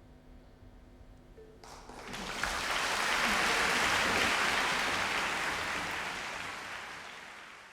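Audience applauding after a short hush. The clapping breaks out about two seconds in, swells, then fades out near the end.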